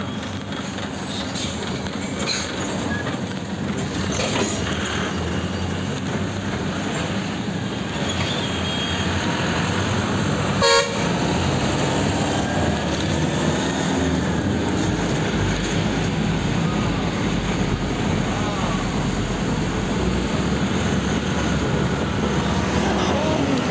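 Steady engine and road noise heard from inside a moving bus at an open window, with one short vehicle horn honk about halfway through.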